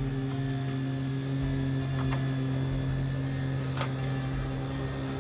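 Cordless electric walk-behind lawn mower running steadily while cutting grass, a constant motor hum with a couple of brief sharp ticks about two and four seconds in.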